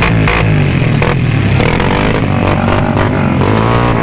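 Honda Wave 125's single-cylinder four-stroke engine revved hard again and again, its pitch swinging up and falling back.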